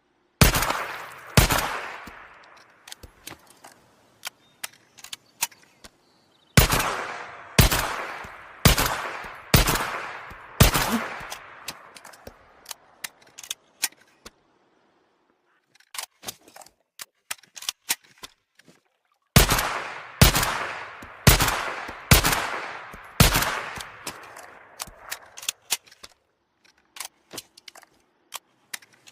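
.22 repeating rifle fired in strings of shots about a second apart: two near the start, then five, then after a pause five more. Each shot has a long echo tail, and quieter clicks and knocks come between the strings.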